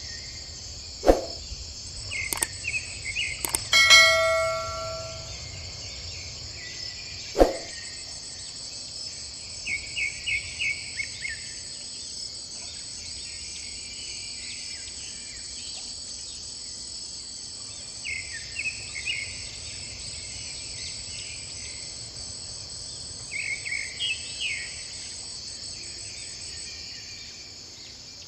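Steady high insect drone with short runs of bird chirps every several seconds. About four seconds in, a single bell-like ring with several overtones dies away over about a second and a half, and a few sharp clicks come in the first eight seconds.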